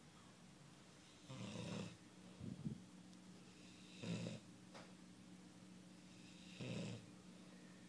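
Snoring in a regular rhythm: three snores about two and a half seconds apart, each about half a second long, with a shorter snort between the first two, over a steady low hum.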